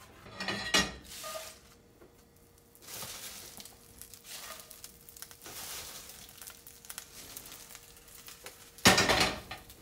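Fresh spinach leaves rustling in a nonstick skillet as it is handled over a wooden cutting board, with a clatter about a second in and a louder one near the end.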